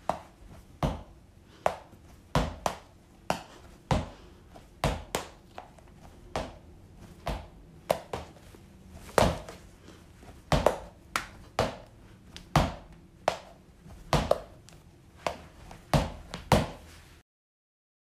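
Small sticky gel balls (Globbles) thrown one after another against a wall, each landing with a sharp smack and sticking. The hits come about one or two a second and stop shortly before the end.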